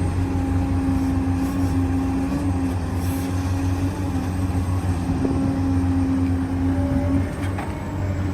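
Small electric motors and gearboxes of 1:14 scale RC construction machines running with a steady hum and whine, which eases briefly near the end.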